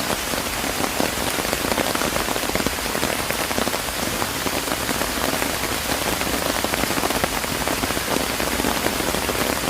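Steady rain falling, a dense, even hiss made of countless individual drop hits.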